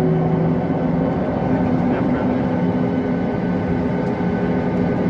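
Steady engine drone of a moving vehicle: a constant low hum with a few steady tones over a dense rumble, with no rise or fall.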